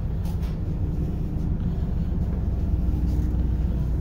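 Steady low rumble inside the Setsugekka tourist train's diesel railcar, with a faint even hum over it. There are a couple of light ticks right at the start.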